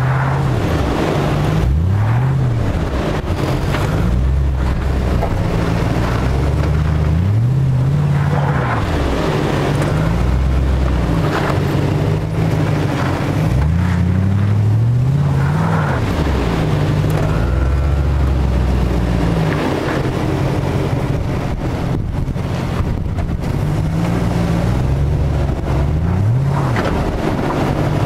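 Jeep Grand Cherokee WJ's engine revving up and falling back again and again, working under load as the 4x4 crawls over deep dirt ruts.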